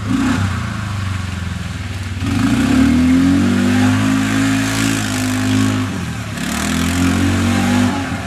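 Utility ATV engine running and revving as the quad works along a muddy trail: the revs climb about two seconds in, drop back briefly around six seconds, then rise again near the end.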